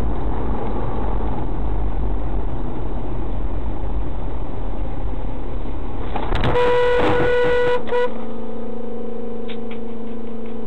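Steady road and engine rumble inside a moving car, then a car horn sounding once for about a second and a half, about six and a half seconds in.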